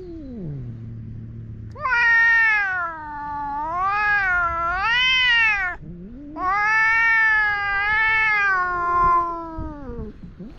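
Cat yowling in an aggressive standoff with another cat, the threat display before a fight: a short falling call that sinks into a low growl, then two long drawn-out yowls of about four seconds each that waver up and down in pitch.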